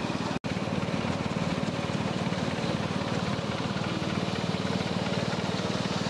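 Small internal-combustion engine of a miniature railway locomotive idling with a fast, even putter.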